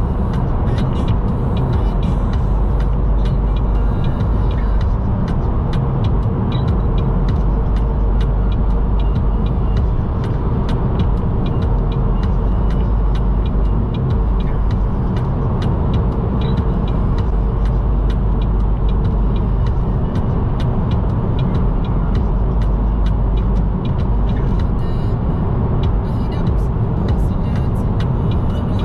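Steady road and engine noise of a vehicle on the move, heavy in the low end, with many small irregular clicks or rattles throughout.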